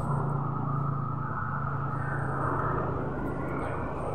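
A vehicle engine idling steadily: an even, low hum.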